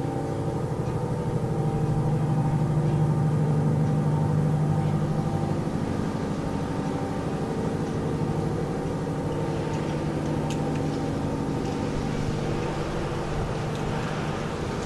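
An unexplained persistent low drone, airplane-like but unbroken. It holds several steady pitches, swells a little about two seconds in and eases off again after about five seconds.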